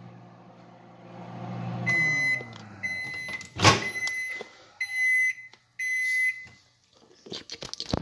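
Microwave oven finishing its cycle: the running hum stops about two seconds in and sinks in pitch as it spins down, then about five short, high end-of-cycle beeps sound roughly once a second. A sharp click cuts in midway, and there is some clattering near the end.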